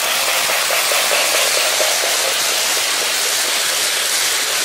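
Lionel O-gauge Hudson steam locomotive and passenger cars running on FasTrack: a steady rushing noise of the wheels and motor on the track.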